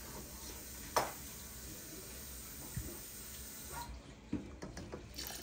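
Quiet kitchen sounds over a faint steady hiss: one sharp click about a second in, a small knock, and a few light clicks near the end.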